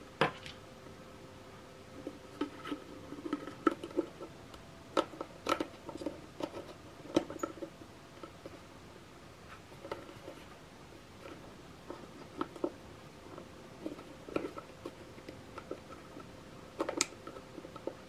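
Hard plastic parts of a Kärcher window-cleaner spray bottle being handled and fitted together: irregular clicks, taps and light knocks, with a louder cluster of clicks near the end.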